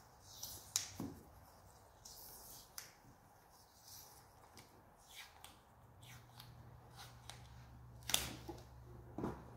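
Faint clicks and rustles of hands twisting and handling electrical wires, with a few sharp clicks near the start and near the end. A low steady hum sets in about six seconds in.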